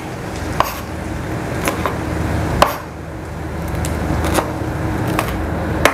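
Large kitchen knife chopping on a wooden cutting board: about seven sharp, unevenly spaced strikes.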